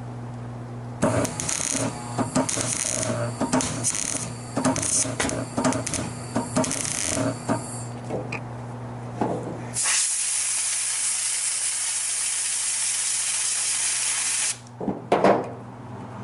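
Several seconds of clattering, clicking and rubbing as parts are handled. Then a continuous spray hiss lasts about five seconds and starts and stops abruptly, followed by a couple of knocks near the end. A low steady hum runs underneath.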